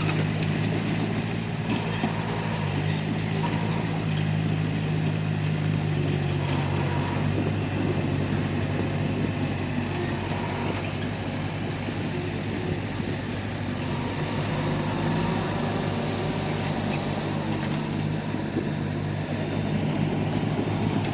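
Crawler bulldozer's diesel engine running steadily at a constant pitch.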